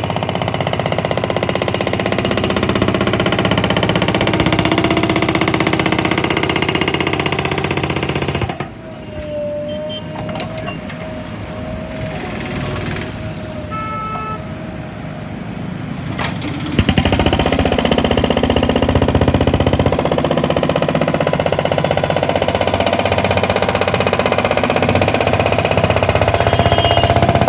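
JCB 3DX backhoe loader's diesel engine running while its JCB HammerMaster 2160 hydraulic breaker pounds a tarmac road in rapid, steady blows. About eight seconds in the hammering stops for some eight seconds, leaving a quieter engine sound with a steady whine. It then starts again loudly.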